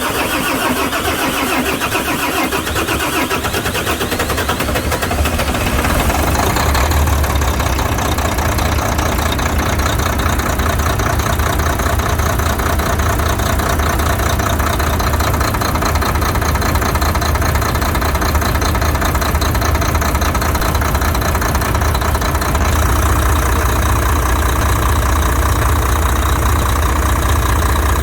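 Freshly rebuilt Volvo FH13 13-litre inline-six diesel, fitted with new injectors, turned over by the starter for about five seconds, then catching and running steadily at idle.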